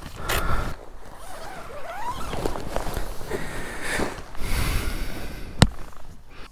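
Rustling and scraping of nylon tent fabric and a rucksack being handled, with a sharp click about five and a half seconds in.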